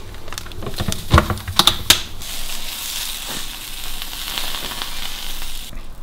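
A few sharp knocks, then eggs sizzling as they fry in a pan. The sizzle is a steady hiss lasting about three seconds, and it cuts off suddenly near the end.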